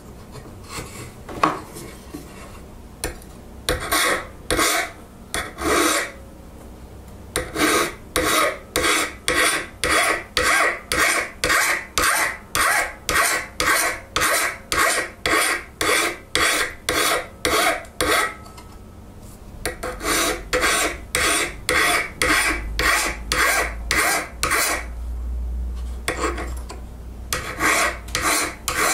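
Flat hand file rasping across the edge of a forged iron ash leveler, in steady strokes about one and a half a second, with two short pauses. A few light metal taps come first, as the blade is handled.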